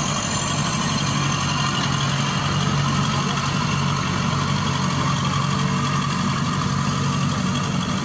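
Crown Sumo rice combine harvester's diesel engine running steadily with a constant hum as the machine moves off along the road on its rubber tracks.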